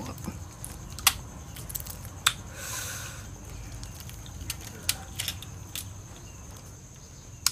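Balut eggshell being cracked and peeled off by hand: scattered sharp cracks of shell, with a short crackling rustle about two and a half seconds in.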